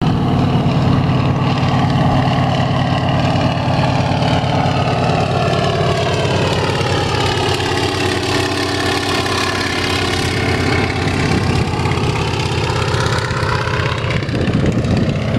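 Low-flying Antonov An-2 crop-spraying biplane, its nine-cylinder radial engine and propeller droning steadily as it makes a low pass. The tone sweeps down and back up as it passes close overhead, around two-thirds of the way through.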